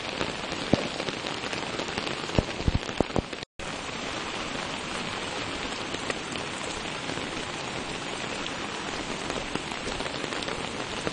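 Steady rain falling, with a few sharp drop taps in the first few seconds. The sound cuts out for an instant about three and a half seconds in.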